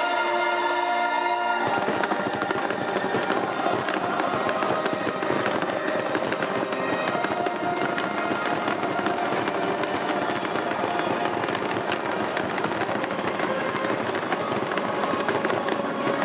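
Fireworks going off in a dense, continuous crackle of rapid bangs, starting about two seconds in, with music underneath.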